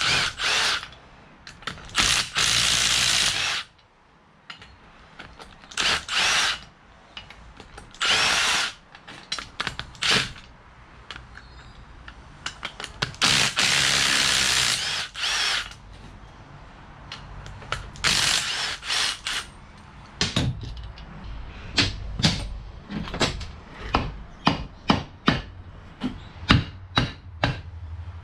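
Cordless power driver running in several bursts of one to two seconds, spinning out the bolts on a Yamaha Wave Blaster jet ski engine's cylinder block. In the last third, a mallet strikes the cylinder block in a run of sharp knocks, about two or three a second, to work it loose.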